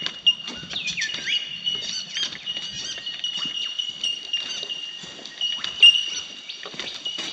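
Birds calling in the bush: a steady high-pitched chorus, a whistled call that falls in pitch about a second in, and scattered chirps, over irregular pattering and crunching.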